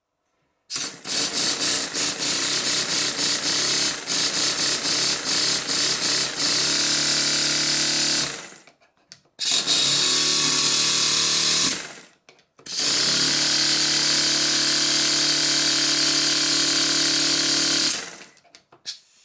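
Twin-cylinder Stuart model steam engine running on compressed air from an air blow gun: a fast exhaust beat that settles into a steady run, stopped and started again twice. Both slide valves are now machined to the same size, so the two cylinders give about equal power.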